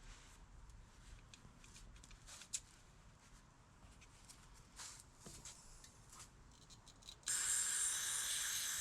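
Aerosol can of carburetor cleaner spraying in a steady hiss that starts suddenly about seven seconds in. Before it come faint, scattered small clicks and rubbing.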